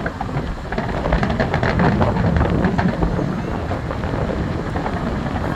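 Fireworks finale: a dense, continuous run of shell bursts booming and crackling, overlapping into one steady rumble.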